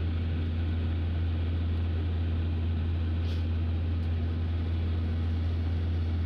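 Steady cabin drone of a jet airliner in cruise flight: engine and airflow noise through the fuselage, a strong low hum with a fainter steady tone above it.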